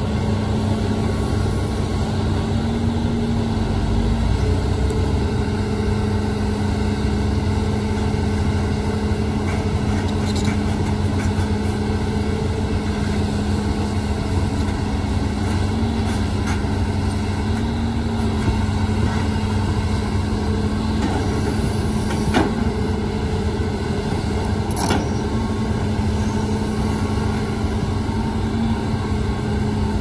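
Hitachi crawler excavator's diesel engine running steadily with a constant pitch as it digs sand around a stuck dump truck, with two sharp clanks about two-thirds of the way through.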